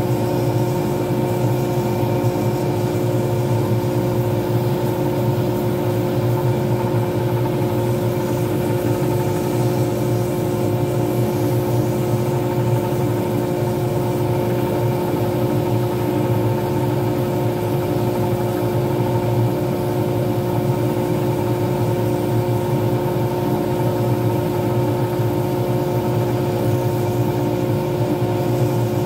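Lathe motor running at a constant speed with a steady hum of several held tones, spinning a resin pen blank while a finishing pad is held against it.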